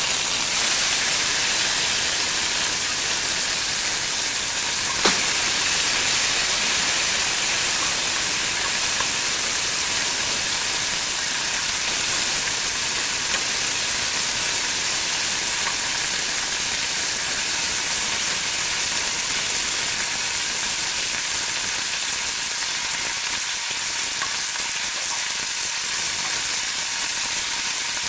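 Boiled babool pods going into hot oil and mustard seeds in an aluminium frying pan, sizzling loudly and steadily as they are stirred with a spatula. A single sharp click about five seconds in.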